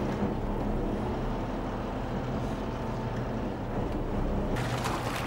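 Fishing boat's engine running steadily, heard from inside the wheelhouse as a low drone. A louder rushing hiss joins near the end.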